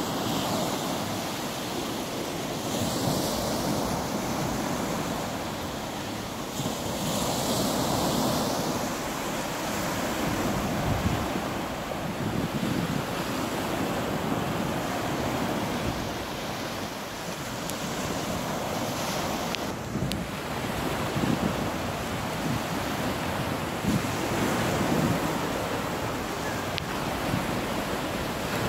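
Small waves breaking and washing up onto a sandy beach, a steady surf hiss that swells and fades as each wave runs in, with wind buffeting the microphone.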